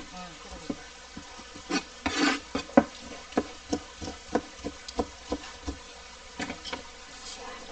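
Knife chopping a sea anemone into pieces on a plastic cutting board: a run of sharp knocks at irregular intervals, about two a second, with a brief scrape about two seconds in.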